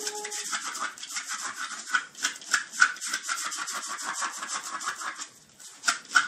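A small terrier's front paws scratching rapidly at a bristly doormat as it digs, a fast run of scratches that breaks off briefly about five seconds in and then starts again.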